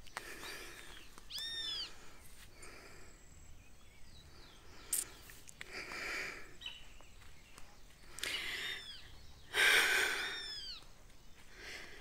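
A bird of prey, taken for an eagle, calling: short, arching screams repeated several times, the loudest about ten seconds in. A single sharp click comes about five seconds in.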